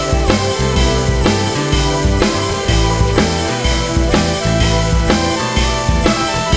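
Rock music with a steady drum-kit beat and sustained instrument notes.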